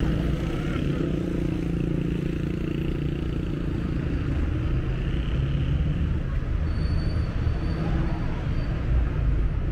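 Street traffic at an intersection: motorcycle and car engines running and passing in a steady hum, with a low engine drone strongest in the first few seconds.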